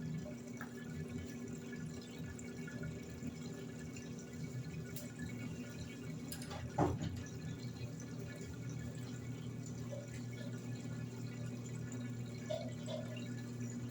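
Electrolux LED14 top-loading washing machine filling with water: a steady rush of incoming water over a low, steady hum. There is a single short thump about seven seconds in.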